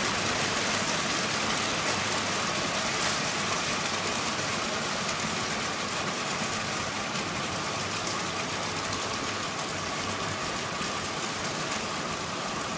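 Stainless-steel apple press machinery running with a steady mechanical hum and rush, no separate knocks or strokes.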